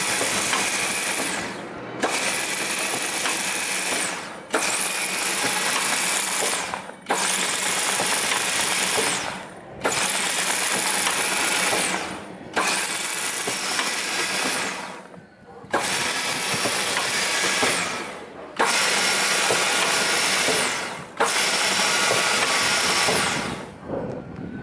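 GOMAD WR multi-spindle wood drilling machine running through repeated working cycles: nine bursts of about two seconds each, each starting suddenly and tailing off, over a faint steady motor hum.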